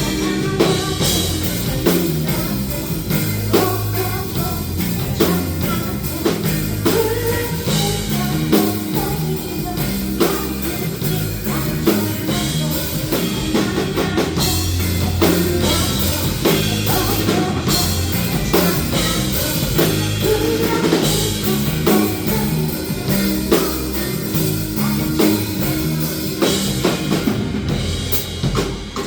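A rock band playing with drum kit, guitar and singing, the drums hitting steadily throughout.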